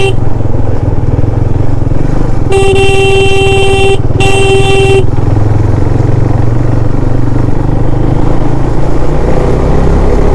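KTM Duke 390 motorcycle riding along, its engine and the wind making a steady low rumble. A vehicle horn sounds twice a few seconds in: a long honk, then a shorter one.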